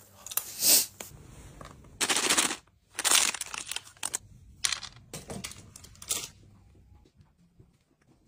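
Small wrapped chocolates rattling out of a plastic bag, with packaging crinkling and pieces clattering, in several short bursts, one a quick run of rapid clicks.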